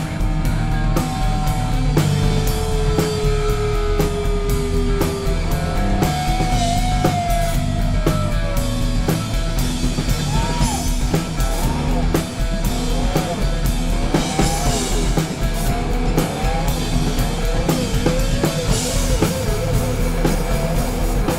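Rock band jamming on guitars, bass and drum kit. A lead guitar plays long notes that bend and waver in pitch over a steady drum beat and bass.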